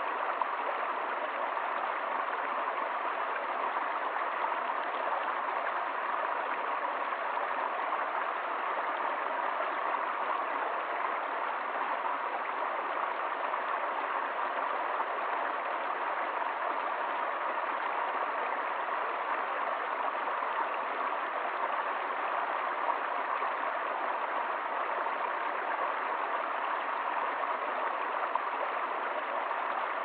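Shallow rocky stream splashing over a small cascade of stones, a steady babbling rush of water that does not change.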